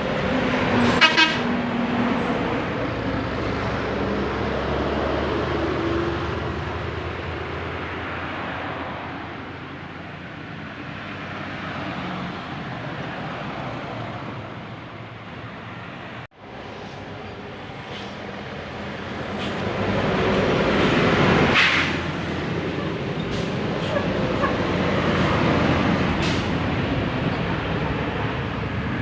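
Large buses driving past on a road, a steady rumble of engines and tyres that swells as one passes close about twenty seconds in. A short horn toot sounds about a second in.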